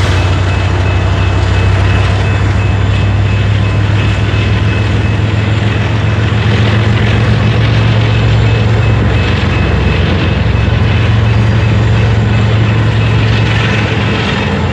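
Freight train passing: a steady low rumble and rolling noise of covered hopper and tank cars going by on the rails, without a break.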